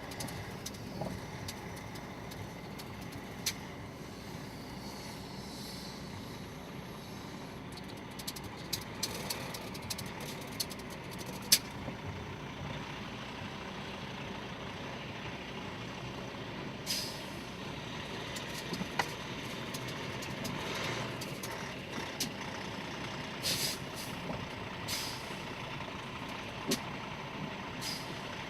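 Semi truck engine running steadily, with scattered clicks and a few short hissing bursts in the second half.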